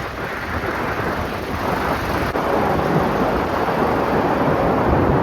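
Steady, deep roar of a severe storm, slowly building, which the storm chasers take for either a thunderstorm or a tornado.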